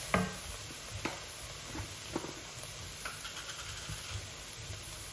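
Metal cookware clanking: a pot is set down on the glass cooktop with a ringing clank just after the start, followed by a few lighter knocks and clinks of kitchen utensils.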